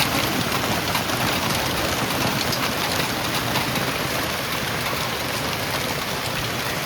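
Heavy rain pouring down steadily in a severe storm, with scattered sharp ticks of drops striking hard surfaces.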